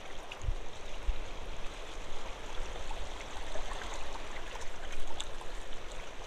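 Steady rush of shallow water washing around shoreline rocks, with two short low thumps about half a second and a second in.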